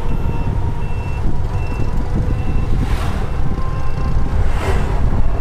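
Electronic warning beeper sounding one short high beep about every 0.8 s, over a steady low rumble of wind and road noise heard from inside a moving electric tricycle.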